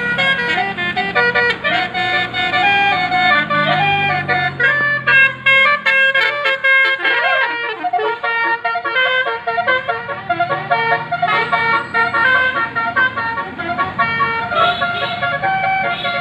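A bus's telolet basuri musical air horn playing a melody in quick stepped notes.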